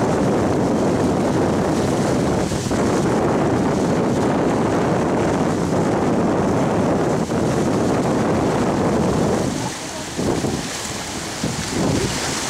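Wind buffeting the microphone over the rush of churning surf, a steady dense noise. About three-quarters of the way through it drops to a quieter wash of water.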